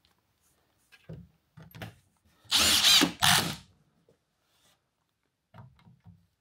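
A Milwaukee cordless driver runs in two short bursts, about half a second each, about two and a half seconds in, driving bolts that fix a CNC gantry rail. Faint clicks of parts being handled come before and after.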